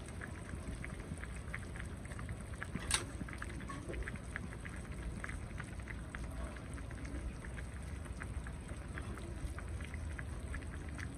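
Fish braise simmering gently in an open clay pot over a low gas flame, the sauce bubbling with many small irregular pops. One sharper click comes about three seconds in.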